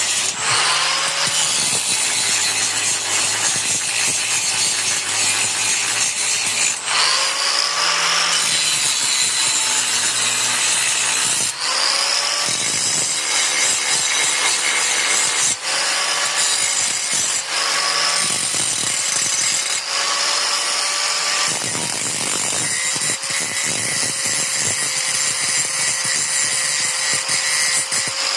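Angle grinder grinding metal clean, a steady loud whine over dense grinding noise. Every few seconds the pitch briefly shifts and recovers as the disc is pressed into and eased off the work.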